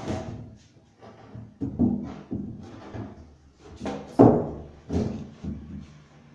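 Two leaves of a hollow plywood double door, built on a light 2 x 3 cm wooden frame, being pushed closed, giving a series of wooden knocks and bumps. The loudest knock comes about four seconds in.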